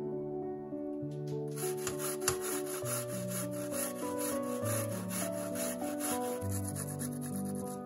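Fresh ginger being grated on a stainless steel box grater: a run of quick, even rasping strokes, several a second, starting about a second and a half in and stopping near the end. Soft background music plays under it.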